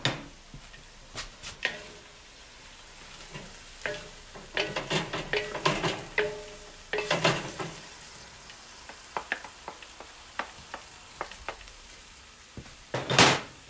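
Stir-fry sizzling in a hot steel wok on a grill while two wooden spatulas toss and scrape bean sprouts and vegetables, in bursts of clattering strokes with pauses between them. There is a louder clatter near the end.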